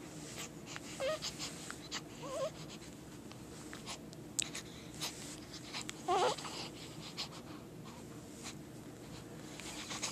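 A few small sneezes, each with a short squeaky, wavering voiced sound, the loudest about six seconds in, with scattered light clicks between them.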